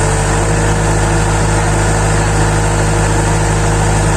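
Excavator engine running steadily, a loud, even hum with a faint steady whine above it.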